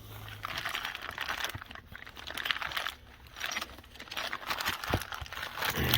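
Crinkling and rustling of packaging with scattered small clicks as a new wheel hub bearing is handled and unwrapped.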